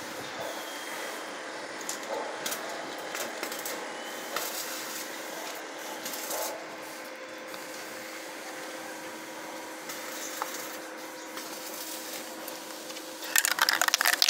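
Playing cards being pushed and slid by hand between a tyre's bead and a steel wheel rim: papery rubbing and scraping in short, irregular strokes over a faint steady hum. About a second before the end, a much louder rough crackling noise sets in.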